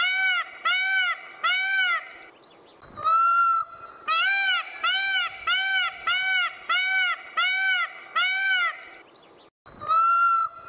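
Indian peacock calling: a run of short, loud honking calls about two a second, each rising and falling in pitch. The calls break off about two seconds in, and a longer single call comes about three seconds in and again near the end.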